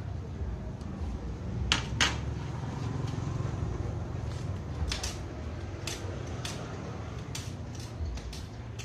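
Glass clinking twice as a pane is set down on other glass on the cutting table, then a run of short sharp cracks as pliers nibble and snap small pieces off the edge of a scored glass pane.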